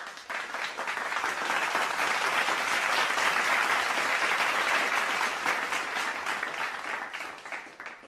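A crowd applauding, many hands clapping together; it builds up and fades away near the end.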